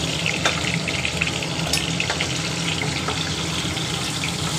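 Catla fish heads sizzling in hot oil in a kadai, a steady frying hiss, with a few light clicks of a metal spatula as the pieces are lifted out.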